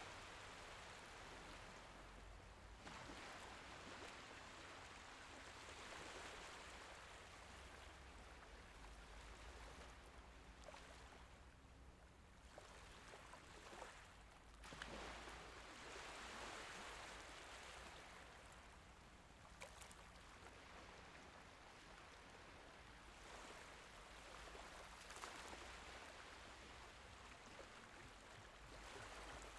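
Faint, gentle waves of the Mediterranean Sea washing in and drawing back, swelling and fading every few seconds, with a few faint ticks.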